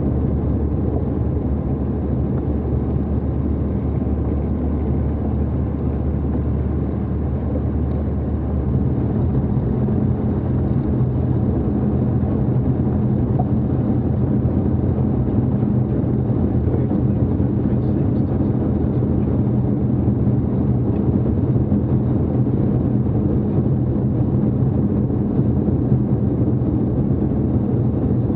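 Jabiru 2200 four-cylinder aircraft engine of a Jabiru SP500 running steadily at low taxi power, heard from inside the cockpit. Its note steps up slightly about nine seconds in.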